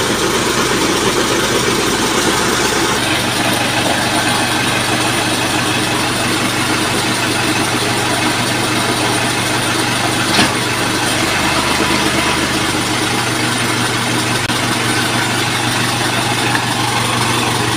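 Boom truck's engine running steadily to drive the crane's hydraulics while the crane holds a truck cab on its hook; its note changes about three seconds in. A single sharp click about ten seconds in.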